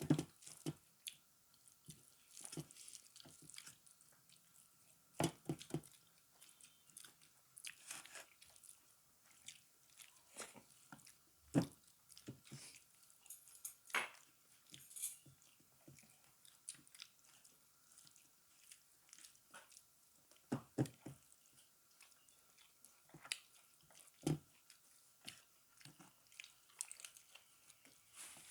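Close-miked eating sounds: a person chewing and biting a rice meal, with irregular wet mouth clicks and occasional crunches.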